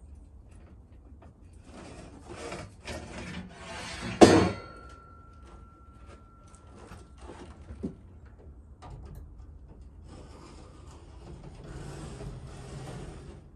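Hand work at a build: several rough scraping or rubbing strokes, then one sharp knock about four seconds in that leaves a thin metallic ring for a couple of seconds. A lighter knock follows, and more rubbing near the end.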